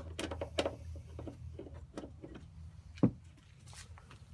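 Phillips screwdriver clicking and tapping against a screw in the tail light housing as it is worked loose, with one louder knock about three seconds in, over a low steady hum.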